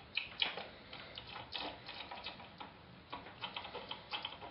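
Small irregular clicks and taps of a blue monitor-cable plug being fitted to a graphics card's video connector, with two sharper clicks in the first half second.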